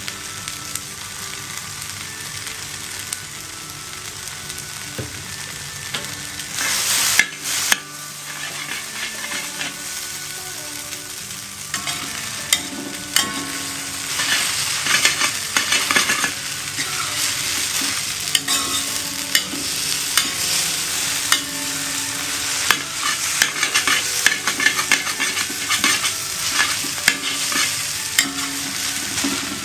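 Fried rice vermicelli being stir-fried in a hot pan: oil sizzling steadily under frequent scrapes and clicks of a spatula. There is a brief louder burst of sizzling about a quarter of the way in, and the sizzling grows louder from about halfway through.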